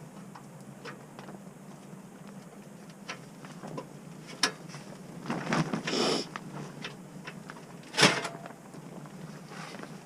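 Scattered knocks and clicks of things being handled, with a rustling stretch about five seconds in and one sharp knock about eight seconds in.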